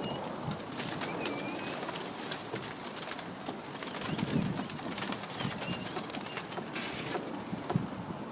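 Pigeons being let out of their loft: scattered wing clatter with a few thin, high, wavering chirps, and a brief louder rush of wings near the end.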